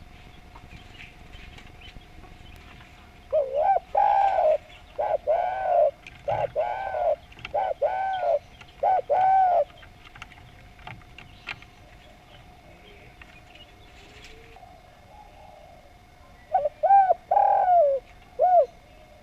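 Spotted dove (derkuku) cooing: a run of rounded, arching coos for about six seconds, then after a pause a shorter phrase of three or four coos near the end.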